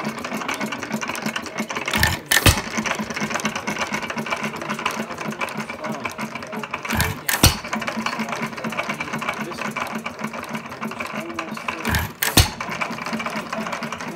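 York hit-and-miss stationary gas engine running: a pair of sharp firing bangs about every five seconds, three times, with a fast steady clicking of the valve gear and igniter while it coasts between firings.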